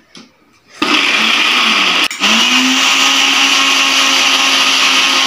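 Small electric mixer grinder switched on about a second in, spinning up to a steady whine as it grinds a wet paste of green chillies, coriander, tamarind and ginger. It cuts out for a moment about two seconds in, then starts again.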